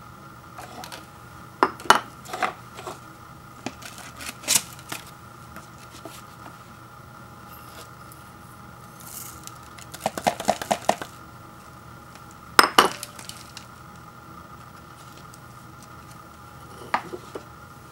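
Small white ceramic bowl clinking and knocking as it is handled and tipped over a paper instant-noodle cup, with a quick run of light rattling clicks about ten seconds in. The loudest is a single sharp knock a little past the middle, and a last light clink comes near the end.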